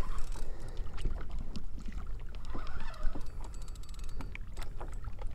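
Spinning reel clicking irregularly as line is worked against a heavy fish, over a steady low rumble.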